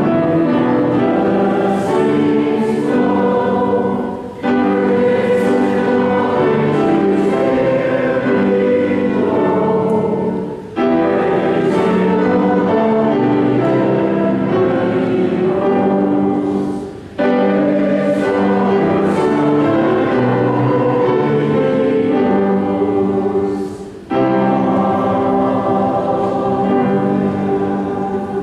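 Church choir singing, in long phrases of about six seconds each, with a brief breath between phrases; the last phrase fades away.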